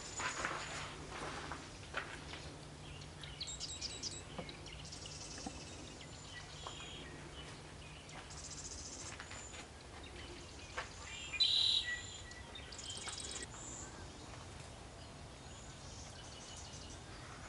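Wild birds calling, faint: scattered short high-pitched chirps and quick trills, with the loudest burst of chirping about two-thirds of the way through.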